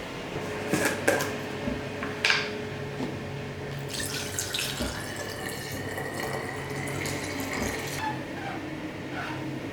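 A few sharp knocks and clicks, then a kitchen tap running water into a sink for about four seconds and shut off.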